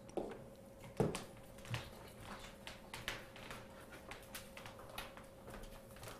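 Scattered light clicks and taps of hands handling equipment on a table, with one louder knock about a second in, over a faint steady hum.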